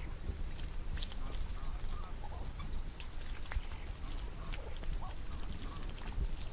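Ducks dabbling their bills in mud: many small wet clicks and squelches, with a few soft, low calls between them. A thin steady high tone runs underneath.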